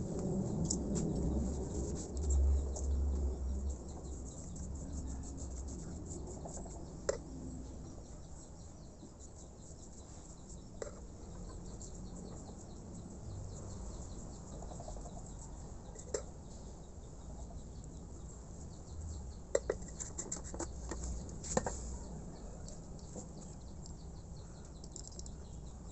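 A few sharp clicks and taps of compressor-head parts being handled, with a low rumble about two seconds in. Insects chirp steadily in the background.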